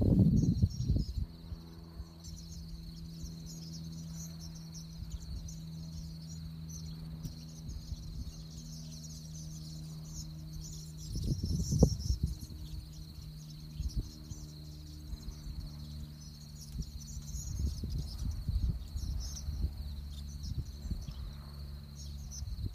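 Large flock of swallows twittering high overhead in a constant chatter, over a steady low hum and a thin steady high tone. A louder low rumble breaks in about 11 seconds in, and low rumbling returns near the end.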